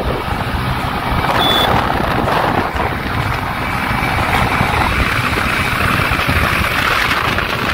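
Steady road noise from a moving vehicle, with wind buffeting the microphone.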